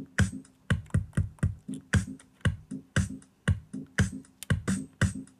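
A music track playing back from Traktor DJ software: a steady electronic drum-machine beat at about two beats a second.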